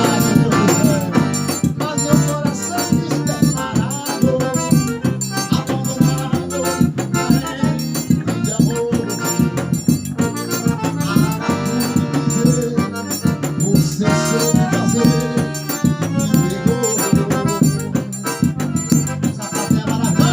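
Forró music: accordion playing over a fast, steady beat of rattling shaker percussion.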